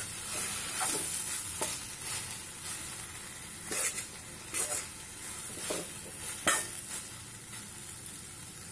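Chopped coriander and tomatoes sizzling in oil in a stainless steel kadhai with a steady hiss. A spatula stirs them, scraping against the pan about six times at irregular intervals, mostly before the last couple of seconds.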